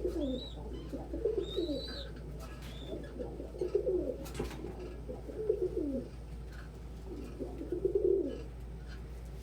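Domestic pigeons cooing, a run of falling coos every second or two, with a few short high squeaks mixed in during the first couple of seconds.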